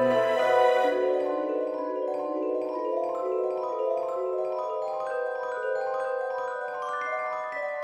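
Music: a melody of ringing, bell-like mallet tones, the notes overlapping as each one sustains, stepping down and then climbing again.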